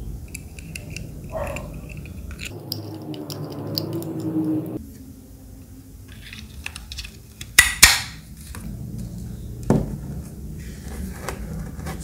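Small hard plastic parts of a handheld spray fan being handled and fitted together: light clicks and clacks, a creaking scrape for about two seconds early on as the spray pump is screwed onto its little plastic bottle, then two sharp snaps, the louder a bit past halfway, as pieces click into place.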